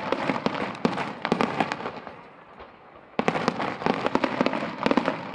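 Aerial fireworks shells bursting in quick succession in a star mine barrage: a dense string of sharp bangs that thins out about two seconds in, then breaks out again suddenly just after three seconds.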